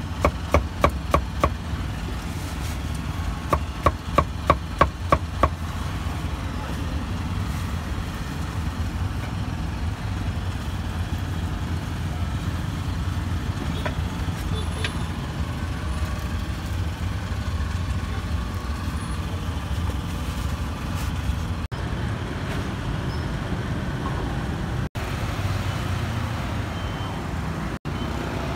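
Cleaver chopping meat on a wooden block: a run of about six quick strikes, then after a short pause another run of about eight, about four a second. Steady street traffic noise runs underneath.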